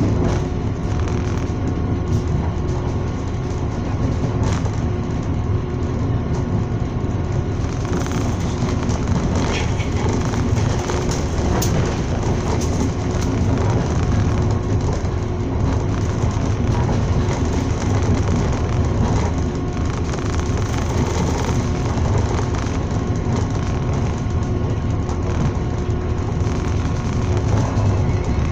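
Passenger train running at speed, heard from on board: a steady rumble of the wheels and carriage with a low hum and a few faint clicks.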